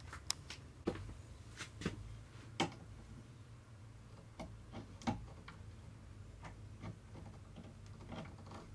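Light, irregular metal clicks and taps of a screwdriver working at a gas strut's end fitting, freeing its metal clip to take the strut off a cabinet door.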